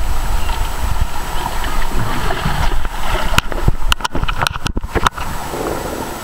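Water rushing and splashing in a water slide's run-out lane, with low rumble and a handful of sharp knocks from water hitting the wet camera's microphone in the second half.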